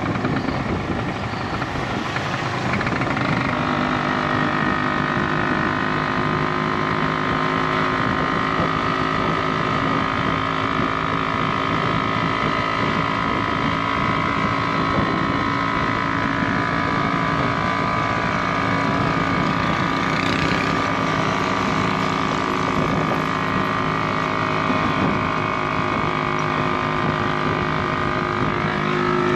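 Tuk-tuk's small engine running steadily as it drives along, with road noise.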